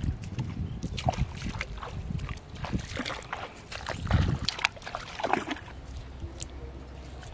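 Shallow river water sloshing and splashing around someone's feet and legs as he wades at the muddy edge, in uneven steps that are strongest in the middle and settle down near the end.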